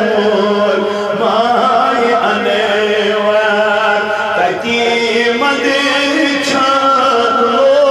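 A man singing a naat, a devotional poem in praise of the Prophet, solo into a microphone, in long held melodic lines with ornamented, wavering notes.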